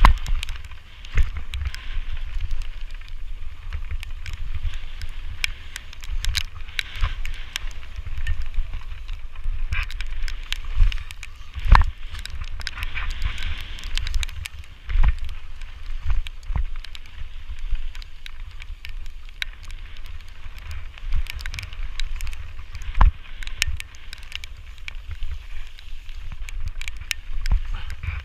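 Giant Reign mountain bike ridden fast down a dry dirt and loose-gravel trail, heard from a helmet-mounted camera: wind buffeting the microphone as a heavy rumble, tyres rolling over gravel, and frequent clicks and knocks from the bike rattling over bumps, the loudest knocks about twelve, fifteen and twenty-three seconds in.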